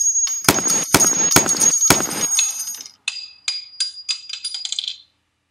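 Gunshot sound effects, about five sharp reports with a metallic ring in the first two seconds. A run of lighter, high ringing ticks follows and stops at about five seconds.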